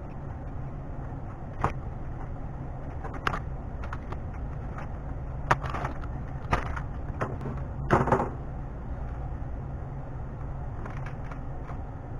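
Handling noise on a wooden workbench: a few scattered knocks and rustles as a USB cable and a plastic bag are moved about, over a steady low hum.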